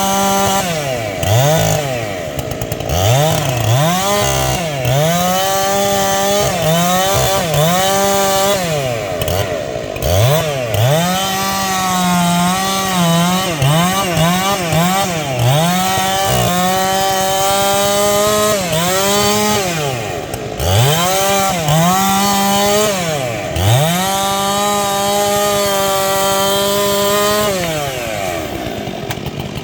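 Stihl MS 461 two-stroke chainsaw cutting into a tree, its engine note dipping under load and climbing back again and again. Near the end it falls away to a lower, steadier note.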